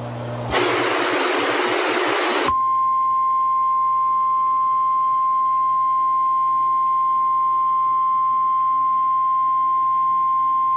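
Emergency alert relayed over FM radio: about two seconds of radio hiss, then a steady single-pitch alert tone near 1 kHz. This is the NOAA Weather Radio 1050 Hz warning alarm tone, the signal that a weather warning message follows.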